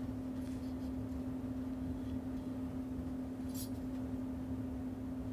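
Quiet room tone with a steady low hum, and one faint, brief scrape about three and a half seconds in as the aluminium heatsink is handled.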